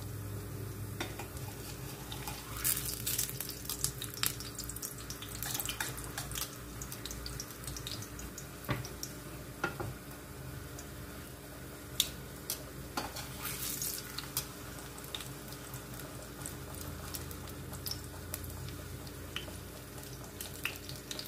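Tortilla sizzling in a thin layer of hot oil in a stainless steel frying pan, a steady hiss with scattered crackles and clicks; the tortilla is only being softened in the oil, not browned.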